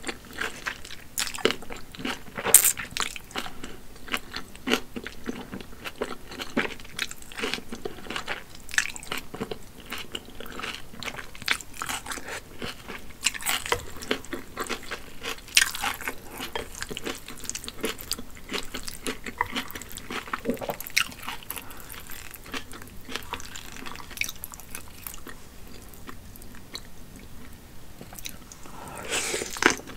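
Close-miked eating sounds: wide hand-pulled Shanxi noodles slurped and chewed, with wet mouth clicks, smacks and some crunching.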